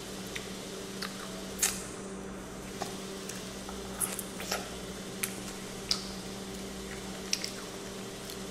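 A child biting and chewing corn on the cob, heard as scattered short wet smacks and clicks of the mouth, the loudest about one and a half seconds in, over a steady low hum.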